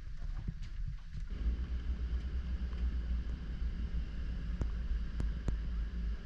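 Boat motor running with wind buffeting the microphone, a steady low rumble that grows louder about a second in. A few sharp clicks come near the end.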